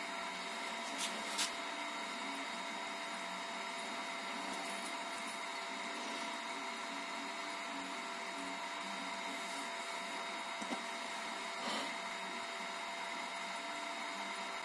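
Extruder stepper motor of a homemade HyperCube CoreXY 3D printer running at a steady rate, feeding filament through the hot end to purge black plastic during a change to orange ABS. It gives a steady whine of several held tones, with a few faint clicks about a second in and near the twelve-second mark.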